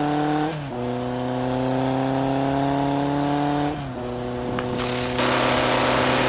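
Motorcycle engine sound effect accelerating through the gears: the pitch climbs steadily, drops at a gear change about half a second in and again near four seconds, then settles into a steadier, rougher running note about five seconds in.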